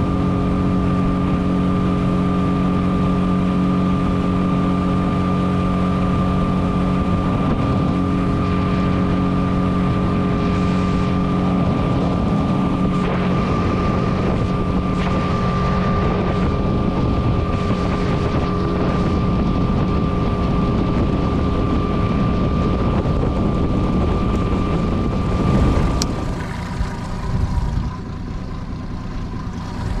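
Outboard motor of a small fishing boat running at steady speed under way, with wind buffeting the microphone. About 26 seconds in the engine is throttled back and the sound drops.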